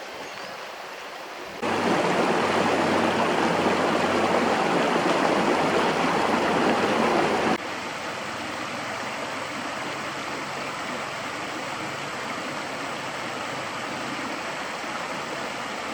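River or stream water flowing steadily. It jumps suddenly louder about two seconds in and drops back just as suddenly a little before the eight-second mark, then carries on more quietly.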